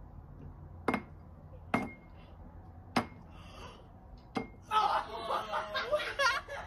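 Four sharp metallic clinks from a small bell pressed by a cat's paw, roughly a second apart, most with a short, high, steady ring after the strike.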